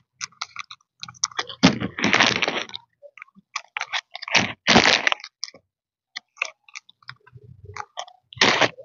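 A person eating noisily close to the microphone: irregular chewing, smacking and crunching clicks, with three longer noisy bursts about two, five and eight and a half seconds in.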